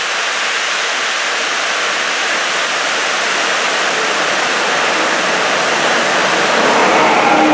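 Rubber-tyred Sapporo Municipal Subway train running past the platform: a steady rushing of tyres and air that slowly grows louder, with a few steady tones coming in near the end.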